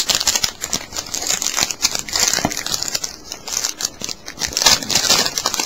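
Foil trading-card pack wrappers crinkling and crackling as they are handled and crumpled, a continuous run of sharp crackles.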